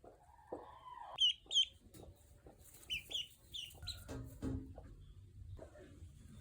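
Broody hen clucking softly while newly hatched ducklings peep: short, high, falling peeps in pairs about a second in and again around three seconds, louder than the low clucks.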